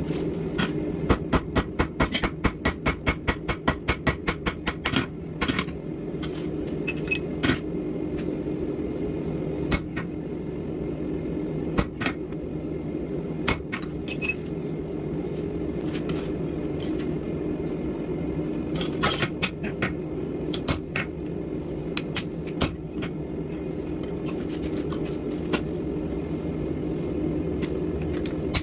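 Hand hammer striking steel on an anvil. A quick run of blows, about five a second, comes in the first few seconds, then single strikes every second or two, over a steady low roar.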